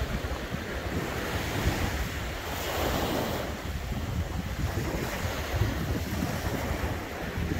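Small sea waves breaking and washing up on a sandy beach, with wind buffeting the microphone; one wave breaks more loudly about three seconds in.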